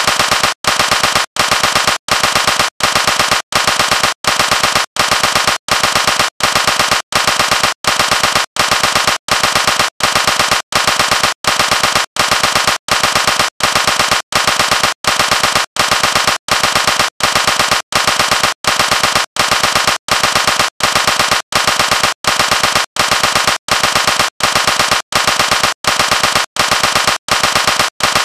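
Loud bursts of rapid gunshot-like cracks, repeating at a perfectly even beat of about three bursts every two seconds, with a short silent gap between each.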